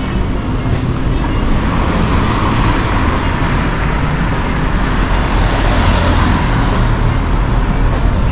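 Road traffic on a city street: a steady rumble and hiss that swells through the middle as a vehicle goes by.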